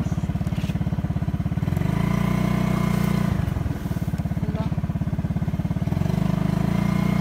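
Motorcycle engine running at low road speed with a rapid, even firing pulse. Its note changes about two seconds in, falls off briefly a little past the middle, and changes again near the end.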